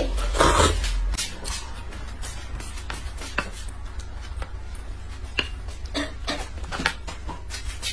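Background music with scattered sharp clicks of wooden chopsticks tapping and stirring noodles in a paper cup.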